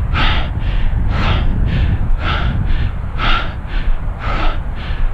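A runner panting hard, out of breath right after finishing a 5K run: heavy in-and-out breaths about two a second, a stronger one roughly every second.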